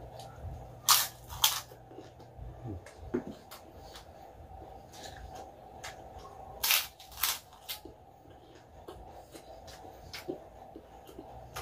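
Crunching bites into crispy deep-fried pork intestine (chicharon bituka) close to the microphone: two pairs of loud crunches, about a second in and again near seven seconds, with softer chewing clicks between.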